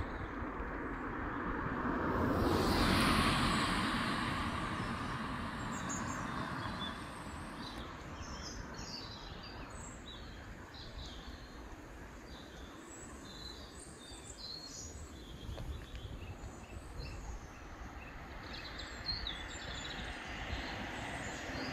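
A car passes on the road about three seconds in, a rising and falling rush of tyre noise. Small birds then chirp and twitter in short high calls through the rest, over a steady low background rumble.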